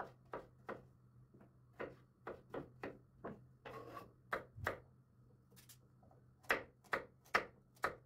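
Kitchen knife chopping vegetables on a wooden cutting board: irregular sharp knocks on the board. A brief scraping sound in the middle as the cut pieces are tipped off the board, then a quicker run of louder chops near the end.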